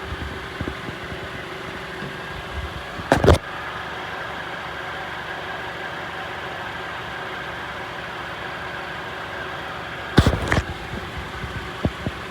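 A 2006 Honda Accord's 2.4-litre four-cylinder engine idling steadily, its freshly welded exhaust holding without leaks. A short burst of noise about three seconds in and a few more short bursts a little after ten seconds stand out over the hum.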